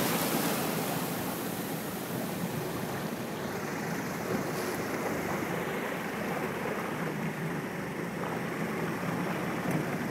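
Steady wash of calm sea water with wind noise on the microphone, and a faint low engine hum underneath.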